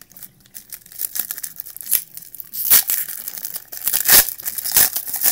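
A 1995-96 Topps basketball retail card pack's wrapper being torn open and crinkled in the hands, in irregular crackling rustles that are loudest near the middle and toward the end.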